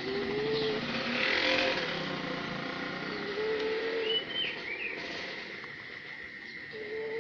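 Snoring: a short buzzing snore on each in-breath, about every three and a half seconds, three times, with a breathy out-breath after the first.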